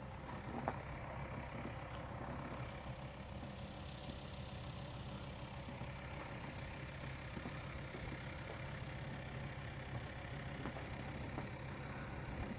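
A vehicle engine running steadily, a low even rumble with no change in pitch.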